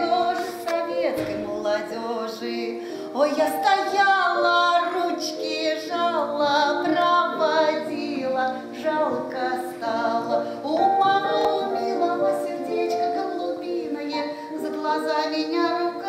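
A woman singing, holding long notes that glide up and down in pitch between phrases.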